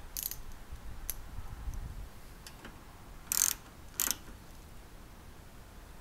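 Quarter-inch-drive ratchet with a 10 mm socket clicking as it tightens the bolt on a Honda snowblower carburetor's fuel bowl: faint clicks at first, then two short, louder rasps of ratcheting a little past the middle.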